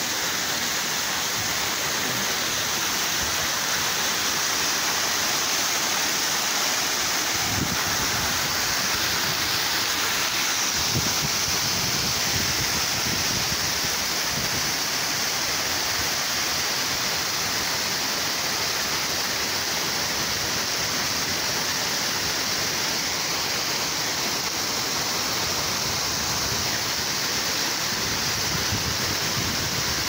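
Small waterfall pouring over a rock ledge and splashing onto the rocks and pool below: a steady rush of falling water.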